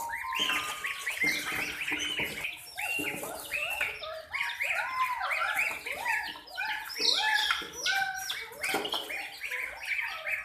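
Baby chicks peeping continuously: many short, overlapping up-and-down chirps from several birds at once, a few each second.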